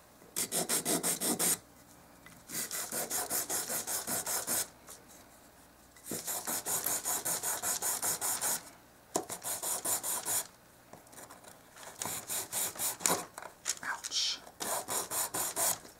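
Nail file rubbed quickly back and forth on a small piece of wooden craft stick, filing down a crooked edge. The strokes come in short runs of about six a second, with brief pauses between runs.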